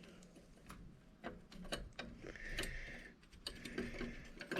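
Scattered light clicks and taps of small metal parts and tools being handled while working on a bicycle's crank and chainring.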